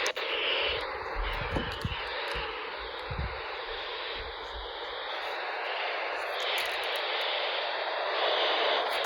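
Radio static: a steady hiss from a weather-radio receiver on a weak or empty signal, with faint wavering whistles through it.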